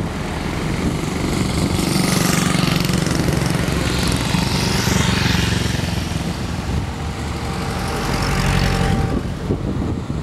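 A column of World War II-era military trucks and jeeps driving past one after another, their engines running steadily. The noise swells and fades as each vehicle passes, most strongly about two, four and eight seconds in.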